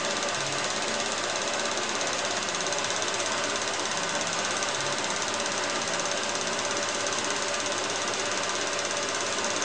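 A 16mm cine projector running steadily, its film mechanism making an even mechanical clatter that does not change.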